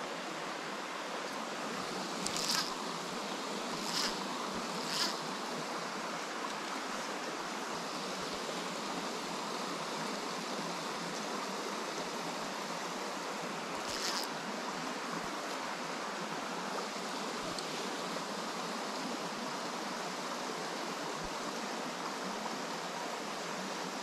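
Small stream running over rocks in a riffle: a steady wash of moving water. A few brief, soft, high swishes stand out early on and once around the middle.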